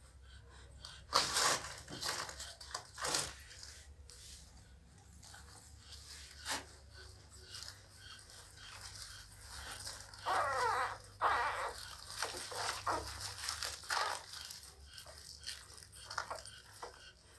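Nursing pit bull puppies giving short whimpers and squeaks, with a longer wavering whine about ten seconds in.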